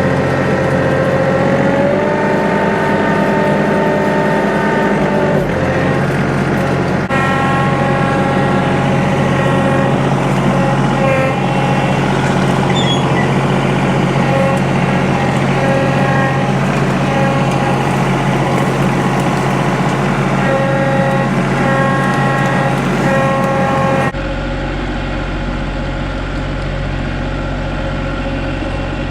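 John Deere 2032R compact tractor's diesel engine running under load, with a steady whine whose pitch shifts a few times as the engine speed changes. The sound changes abruptly about 24 seconds in.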